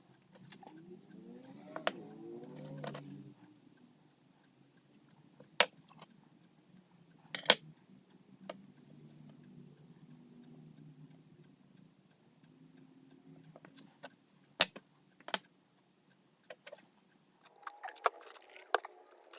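Small metal parts clicking and clinking as they are handled, a few sharp clicks spread out over a faint low hum, with a brief rising whine in the first few seconds.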